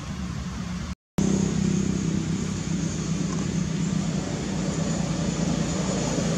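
A steady low engine-like hum with a hiss over it, which cuts out for a moment about a second in.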